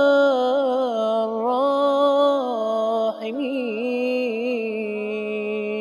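A man's solo voice chanting an Arabic supplication, drawing out the words 'arham ar-rahimin' in long, ornamented held notes, with a short break for breath about three seconds in.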